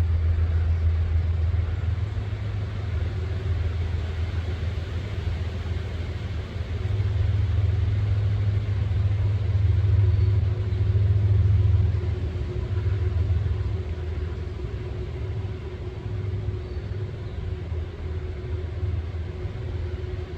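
Low, steady rumble of an approaching CSX freight train's GE ES44AC-H diesel locomotives, still some distance off, swelling and easing as it comes on, with a faint steady engine tone over it.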